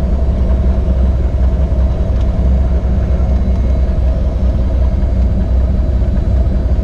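Floatplane's piston engine and propeller running at low power while taxiing on the water, a steady low drone heard from inside the cockpit.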